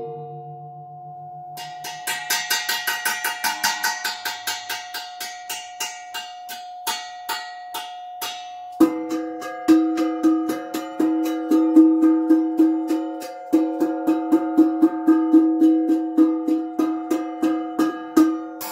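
Rapid, even strikes on improvised percussion, about five a second, each with a ringing pitch; about nine seconds in the strikes move to a lower, stronger note. A steady tone rings underneath throughout: feedback through a short spring reverb unit fed by a room mic.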